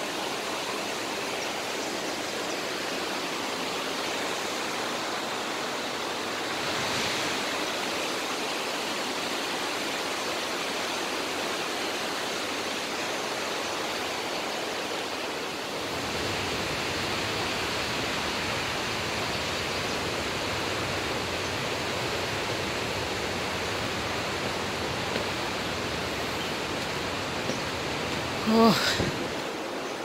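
Steady rushing of a waterfall, an even hiss of falling water with no pauses. Near the end comes one brief high call that glides up and down.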